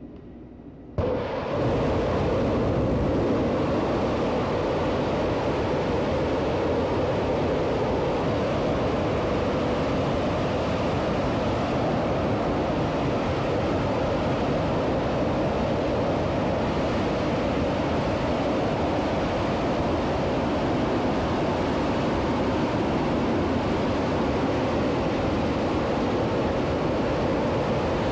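Space Shuttle Main Engine, a liquid-hydrogen and liquid-oxygen rocket engine, firing on a test stand, heard from a distance as a steady, loud rushing noise that starts suddenly about a second in.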